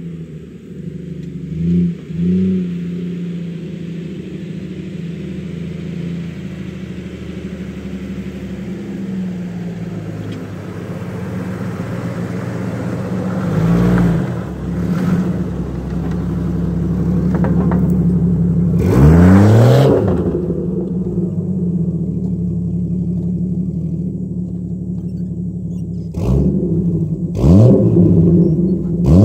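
1997 Jeep Grand Cherokee ZJ's 4.0-litre straight-six running through an exhaust with no catalytic converter and a welded dual-chamber muffler, an off-brand Flowmaster 40 copy. It idles steadily and is revved several times: short blips early and mid-way, one big rev that climbs and falls back about two-thirds of the way through, and a quick run of revs near the end.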